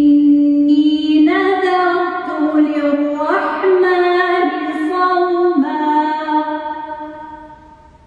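A woman chanting Quranic recitation in Arabic: long, ornamented held notes that step up in pitch through the middle of the phrase and then drop, ringing in a reverberant stone church. The phrase ends and the voice dies away near the end.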